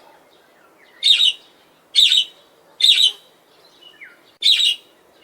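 Budgerigar chirping: four loud, short chirps roughly a second apart, with a few faint gliding whistles between them.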